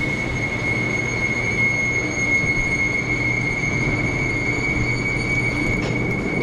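Overhead silage feed conveyor running in a dairy barn: a steady rumble with a constant high-pitched squeal over it.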